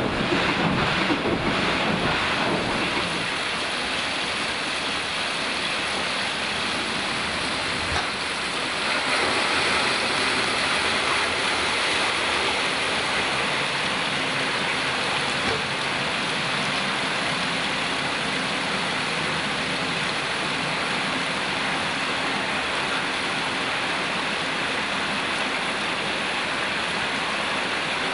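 Steady rush of water flowing through a water mill's wooden flume, an even, unbroken hiss. For the first couple of seconds a lower rumble of the turning mill machinery sits under it.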